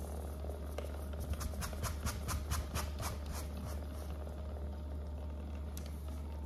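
Handheld percussive massage gun running with a steady low buzz as it works on a Labrador retriever's body. About a second in, a quick run of sharp clicks, about six a second, lasts for roughly two and a half seconds.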